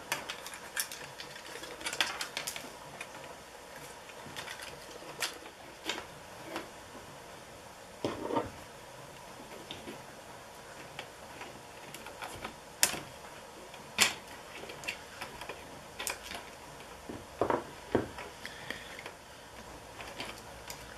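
Scattered small clicks and taps of plastic drone parts and a small hand tool being handled while a quadcopter's propeller motor and arm are worked on, with two sharper clicks about two-thirds of the way through.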